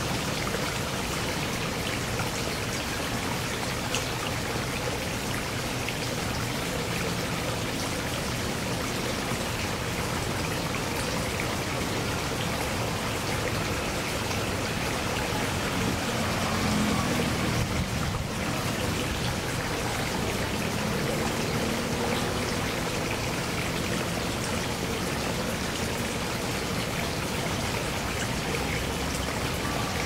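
Water flowing and trickling steadily into a shallow garden pond, an even rushing hiss. A faint low hum swells briefly about halfway through.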